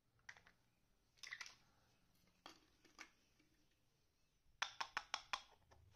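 Small plastic toy pots and pans clicking and tapping against each other and the wooden floor as they are picked up and set down: a few scattered clicks, then a quick run of about six near the end.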